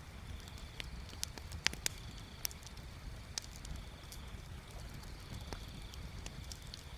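Wood bonfire crackling: scattered sharp pops and snaps, the loudest two a little under two seconds in, over a low steady rumble. A faint steady high tone fades in and out behind it.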